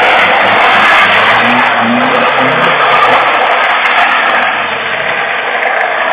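A car drifting: engine revving under load with dense, continuous tyre screech.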